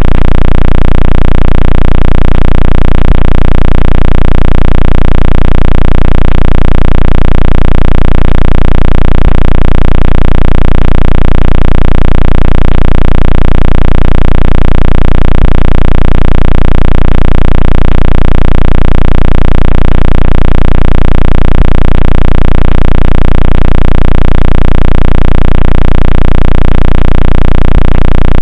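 Synthetic water-eject tone played at full volume: a steady, low-pitched electronic buzz with a low throb pulsing about twice a second, meant to shake water out of a phone's speaker and charging port.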